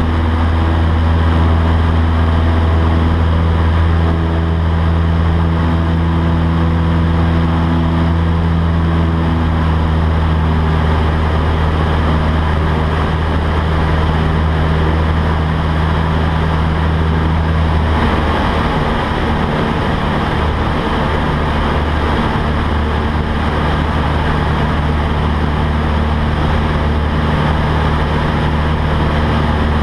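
Cessna 152's Lycoming O-235 four-cylinder engine and propeller droning steadily in cruise, heard from inside the cabin. The drone's tone shifts and turns less even about two-thirds of the way through.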